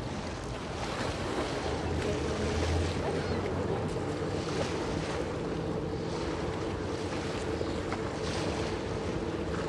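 Steady low machinery hum from the steam-turbine Great Lakes freighter Wilfred Sykes as she passes close by, swelling briefly a couple of seconds in. Wind buffets the microphone and water washes underneath.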